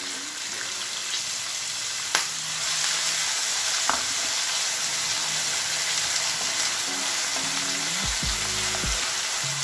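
Finely chopped onion sizzling in hot oil in a nonstick frying pan while being stirred with a silicone spatula. The sizzle grows a little stronger about two seconds in, with a couple of light taps.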